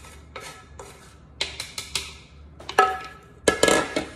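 A metal mesh sieve clinking and tapping against a stainless steel pot as flour is tipped and knocked into it from a plastic bowl: several clusters of sharp taps, some with a short metallic ring, the loudest near the end.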